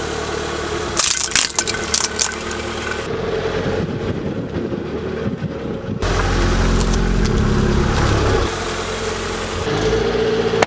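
Car engine running steadily at low speed as the tyre rolls over two Christmas ornaments, which crack and crunch in a quick burst of sharp snaps about a second in. After a cut about six seconds in, the engine's low rumble is louder.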